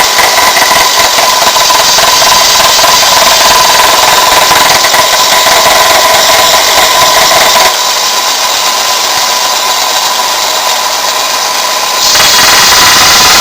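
Aldi Work Zone combination belt-and-stone grinder running, a loud steady hiss with a high whine. The sound drops abruptly about eight seconds in and comes back louder near the end.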